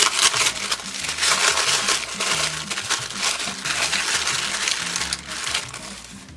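Packaging being opened by hand, a continuous crinkling and rustling, with soft background music underneath.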